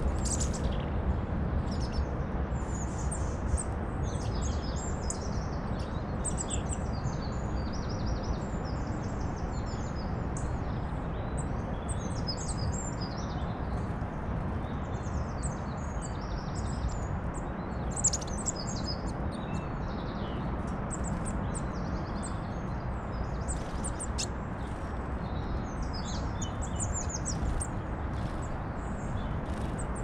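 Small songbirds chirping and singing, many short high calls and trills overlapping without a break, over a steady low background rumble.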